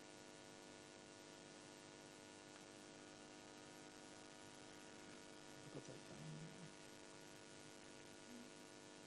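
Near silence with a steady electrical mains hum, and a brief faint sound about six seconds in.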